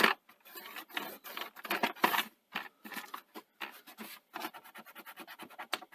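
Rapid scratchy rubbing and scraping strokes on a small Perspex panel, such as a cloth wiping the dirt off it, with a quicker run of strokes about four and a half seconds in.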